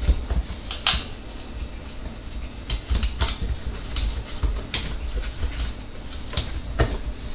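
Hands fitting a hose clamp around a dishwasher's rubber hose connector: a handful of sharp, irregular clicks of plastic and metal over steady handling rustle.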